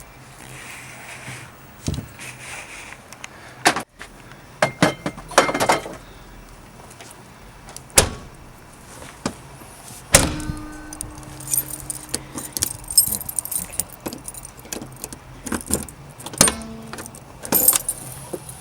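Keys jangling, with a series of sharp clicks and clunks from a Toyota Celica ST185 door lock and handle being worked to test the newly fitted lock. The two loudest knocks come about eight and ten seconds in.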